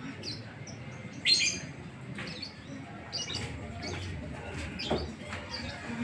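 Fischer's lovebird chirping in short, sharp bursts, the ticking call lovebird keepers call "ngetik". About half a dozen chirps come through, the loudest about a second in.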